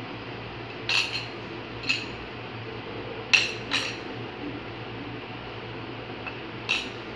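A spoon clinks against a dish a handful of times, some strikes in quick pairs, as ground spices are added to a falafel mixture. A low steady hum runs underneath.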